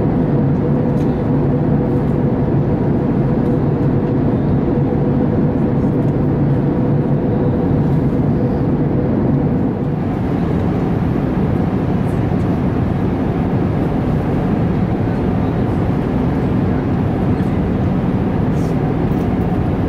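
Steady jet engine and airflow noise inside the cabin of an Airbus A380 powered by Rolls-Royce Trent 900 engines, with a steady hum that fades out about ten seconds in.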